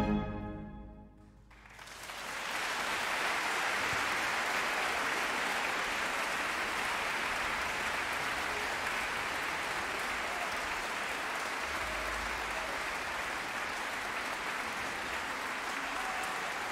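An orchestra's last chord ends and rings away into a second or so of silence, then a concert audience breaks into applause that builds and holds steady.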